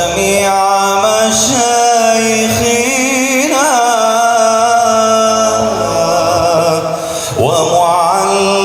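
Male voices chanting an Arabic sholawat: a lead voice sings a long, slow melismatic line with a wavering pitch over a steady held drone.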